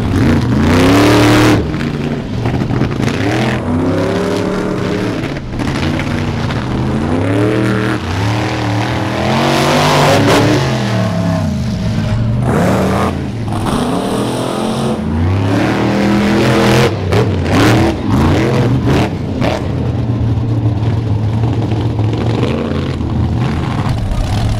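Monster truck engines revving hard under racing load, their pitch climbing and dropping again and again as the trucks accelerate and back off. Near the end the engine note settles into a steadier, lower run.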